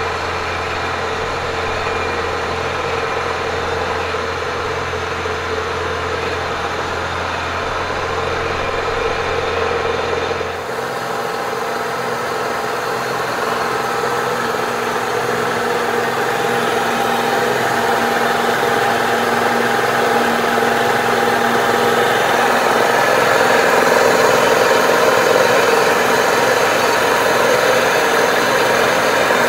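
Kearney & Trecker 307 S-12 horizontal milling machine taking a steady straddle cut, two side-milling cutters on the arbor cutting both edges of a cast iron plate at once. The plate is braced underneath against chatter and the cut is running better. A low hum drops away about ten seconds in, and the cutting noise carries on steadily.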